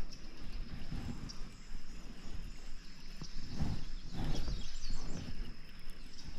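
Riverside ambience: a steady high insect drone with a few bird chirps past the middle, over several low swishing surges of water or kayak movement.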